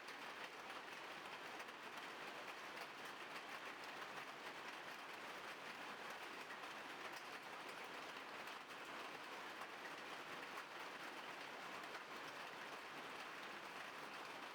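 Faint, steady outdoor background noise, an even hiss with no distinct events.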